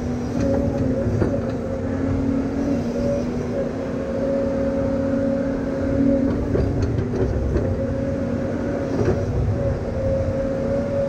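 A heavy engine running steadily: a low rumble with a steady whine over it and scattered metallic clicks and clanks.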